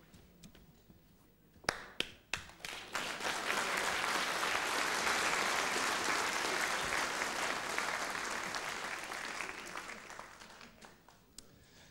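Studio audience applauding: a few single claps, then full applause from about three seconds in that dies away near the end.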